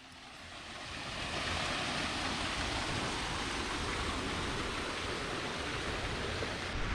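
Steady rushing of flowing water, fading in over the first second or so and then holding even.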